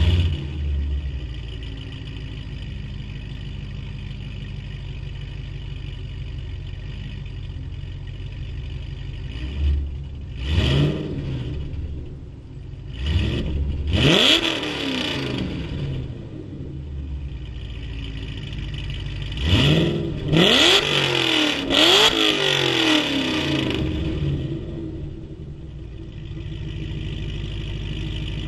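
2011 Cadillac CTS-V's supercharged V8, fitted with headers and with its exhaust cutouts open, fires up with a flare and settles to a steady loud idle. About ten seconds in it is revved in a few sharp blips, rising and falling in pitch, then again in a quick series around twenty seconds, dropping back to idle each time.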